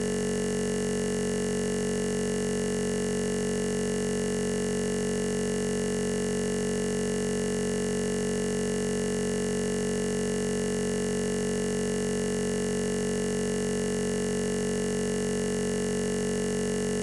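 A steady, unchanging electronic drone of several held tones at once, with a fast flutter in one of the lower tones.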